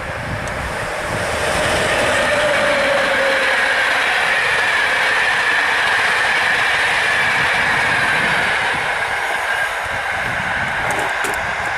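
Electric locomotive and its passenger coaches passing close by at speed on an electrified main line: a whine that drops slightly in pitch as the locomotive goes by, then the steady rush and wheel clatter of the coaches, easing off a little near the end.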